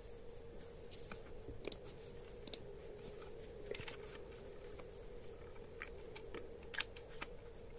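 Scattered light clicks and taps from a computer mouse and a laptop keyboard, some clicks coming close together, over a faint steady hum.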